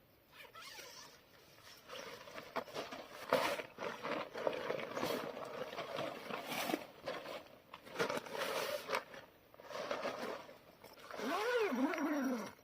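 Irregular rustling and scraping with sharp clicks, then near the end a loud animal call that wavers up and down in pitch.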